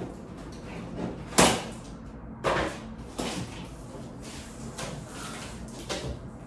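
A large cardboard shipping box being opened: the flaps are pulled apart with scraping and rustling cardboard and a few sharp knocks, the loudest about a second and a half in.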